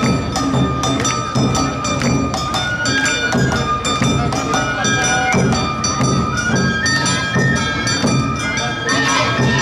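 Awa odori band playing: a bamboo flute holds notes that step upward in pitch over a steady two-beat rhythm of drums and sharp metallic strikes of a hand gong.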